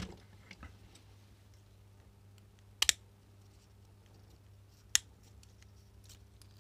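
Scissors snipping through the wire leads of a strip of taped axial resistors to cut them free: a quick double snip about three seconds in and a single sharp snip about two seconds later.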